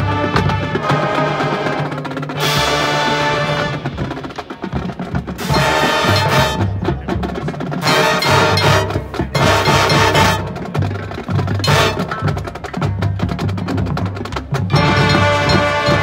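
Marching band playing its field show: held low brass chords over front-ensemble percussion, with several loud full-band swells every few seconds between quieter passages.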